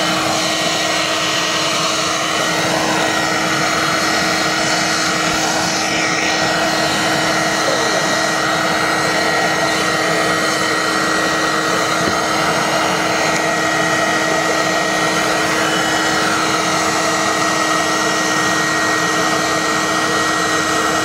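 Homemade waste-oil drip forge running at a low setting: a steady, even whir and hum of the burner and its air blower.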